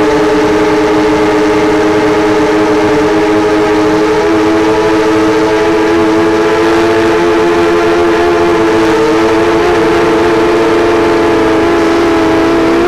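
Brushless motors and propellers of a Diatone 180 racing quadcopter whining steadily in flight, heard from on board, the pitch sagging slightly near the end.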